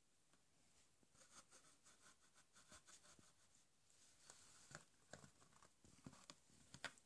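Faint crackling and crunching of a lop-eared rabbit nibbling the torn end of a cardboard box: a quick run of small clicks, with a few louder crunches near the end.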